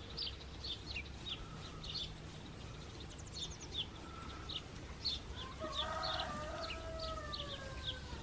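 A rooster crows once, starting about five and a half seconds in and ending in a long, slightly falling note, over the steady chirping of small birds.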